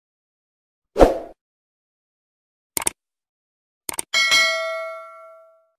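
Subscribe-button animation sound effects: a thump about a second in, then two quick clicks, and a bell ding that rings out and fades over about a second.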